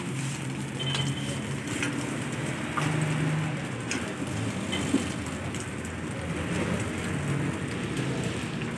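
Parathas and egg frying in oil on a large flat griddle, a steady sizzle, with a few light clicks of metal tongs and scraper against the griddle.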